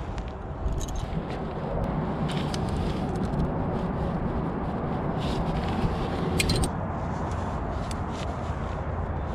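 Wind rumbling on a helmet-mounted microphone, with scattered metallic clinks of carabiners and quickdraws and rustling of a nylon jacket as a climber handles gear and clips the rope. The sharpest cluster of clinks comes about six and a half seconds in.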